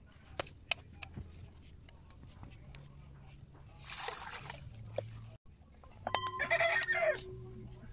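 A rooster crowing once near the end, a loud call of a little over a second. Earlier, a few small clicks and a short rustling rush as glutinous rice and a plastic bag are handled over a metal pot.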